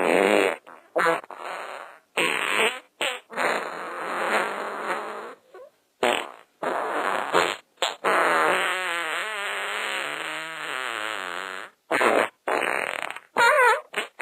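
A rapid string of fart sounds, over a dozen in a row. Most are short and sharp, with a few longer ones. One long fart of about four seconds comes just past the middle, its pitch wobbling up and down.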